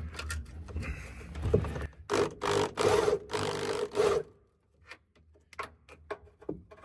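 Electric drill cutting through a car's sheet-metal floor, running in several short bursts with a steady motor whine. It stops a little after four seconds in, leaving only a few faint clicks.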